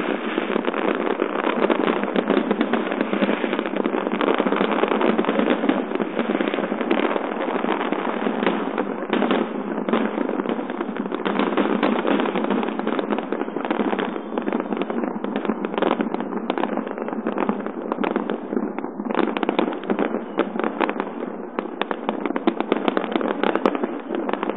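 Massed fireworks bursting without pause: a dense stream of bangs and crackles, a little sparser in the middle. Heard through a phone's microphone, so it sounds thin, without the deep booms.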